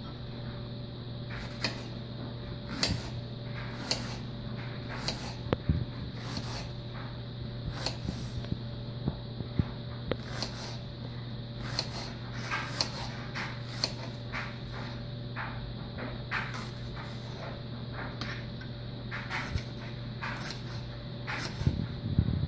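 Kitchen knife slicing a red onion on a cutting board: irregular knocks of the blade striking the board, roughly one a second, over a steady low hum.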